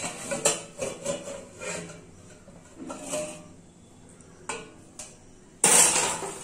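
Aluminium pan lid being lifted off and handled: light metal clinks and rattles, then a louder metal clatter about a second before the end.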